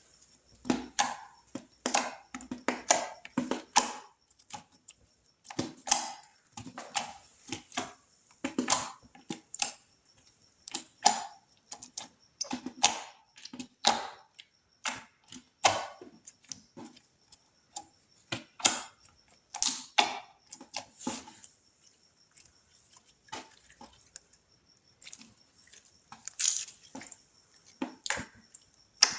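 Slime being worked by hand, giving many short wet clicks and pops in irregular clusters, with brief pauses between the runs.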